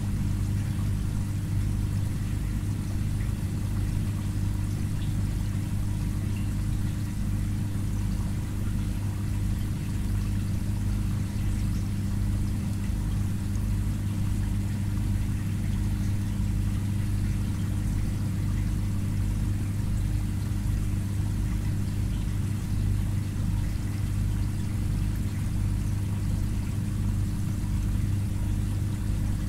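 Aquarium pump or filter running with a steady low hum, with faint water movement over it.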